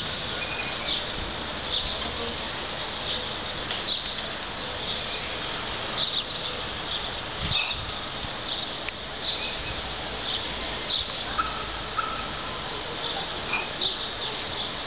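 Small birds chirping: short high chirps roughly once a second, over a steady outdoor hiss.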